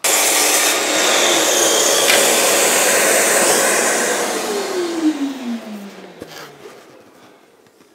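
Festool Kapex KS 60 sliding mitre saw, fitted with a laminate blade, starting suddenly and cutting through Formica-faced chipboard. About four seconds in the motor is released and winds down with a falling whine that fades away.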